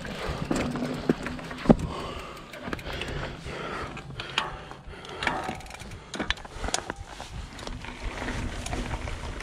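Full-suspension Trek Fuel EX 5 mountain bike rolling over a gravel and cobbled stone path: tyres crunching, with scattered sharp knocks and rattles from the bike, the loudest about two seconds in.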